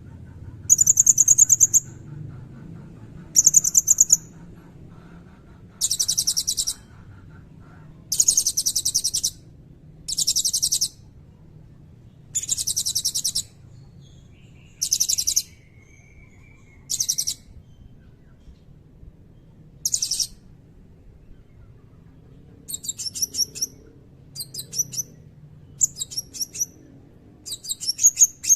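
Blue-crowned hanging parrot (serindit) singing very high, shrill trilled bursts about a second long, one every two seconds or so. Near the end it switches to quicker, shorter chirps.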